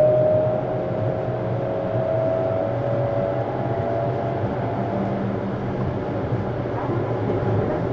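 Tokyu 7700 series electric train heard from inside a motor car while running: a whining traction inverter and motor tone holds near one pitch and fades away about three seconds in. The steady rolling rumble of wheels on rail stays underneath.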